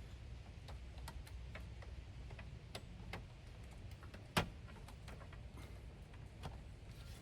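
Faint scattered clicks and taps from a power drill and its plug being handled and readied, with one sharper knock about four seconds in, over a low steady background rumble; the drill is not yet running.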